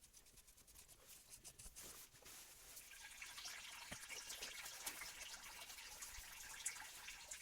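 Faint dripping and trickling of engine oil, with scattered small drips that thicken into a denser patter about halfway through.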